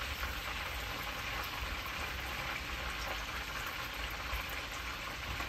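Chicken pieces deep-frying in hot oil: a steady, even sizzle.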